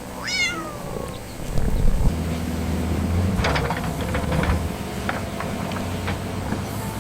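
A cat meows once, the call rising and then falling in pitch, about a second long. Then a low steady mechanical hum sets in, with scattered light knocks and clicks over it.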